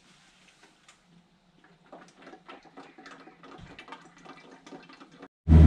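Engine oil glugging and trickling from a plastic jug into a funnel, with light irregular clicks, topping up a 2004 Lamborghini Gallardo's oil. Near the end it cuts abruptly to the Gallardo's V10 engine idling, much louder.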